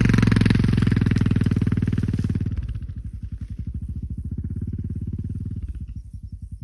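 Yamaha XT 600 single-cylinder four-stroke enduro engine running with a distinct rapid beat as the bike climbs over an embankment step and rides off. Loud at first, it drops clearly about two and a half seconds in and fades further near the end as the bike moves away.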